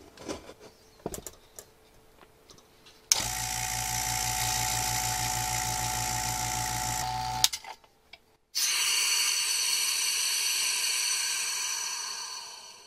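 An electric vacuum pump starts about three seconds in, runs steadily with a low hum, and cuts off abruptly about four seconds later, having pulled a vacuum on a pressure-cooker vacuum chamber. A second later, air hisses in through the gauge-manifold valve, fading away over about four seconds as the chamber returns to atmospheric pressure. A few light handling clicks come before the pump starts.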